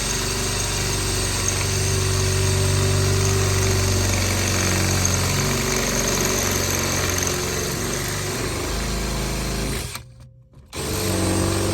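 A motor running steadily, which drops out briefly near the end and then comes back.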